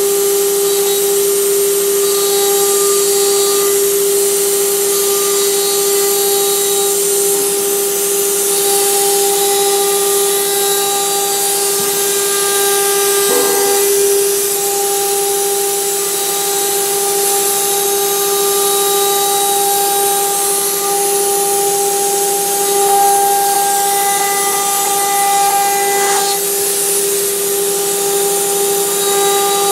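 Electric spindles of an eight-spindle CNC wood router running with a steady whine, their bits engraving lines into a wooden board with a hiss of cutting.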